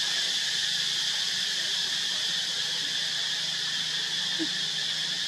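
Steady, high-pitched drone of insects. A brief faint squeak comes about four and a half seconds in.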